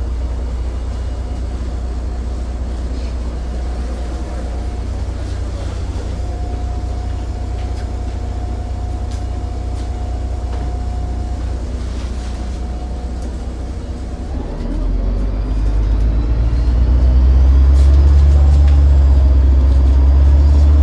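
MAZ-203 city bus heard from inside while driving: a steady low engine and road rumble that builds up about fourteen seconds in as the bus accelerates.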